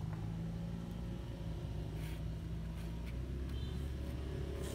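Steady low hum of a motor or engine running, with a few faint ticks over it.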